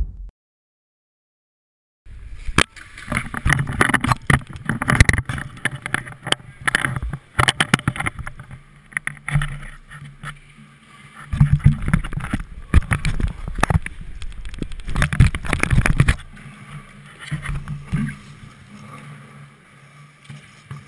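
After about two seconds of silence, ice hockey game sound picked up by a GoPro Hero2 camera mounted behind the goal: a busy jumble of clacks and knocks with skate blades scraping on the ice. It grows quieter over the last few seconds.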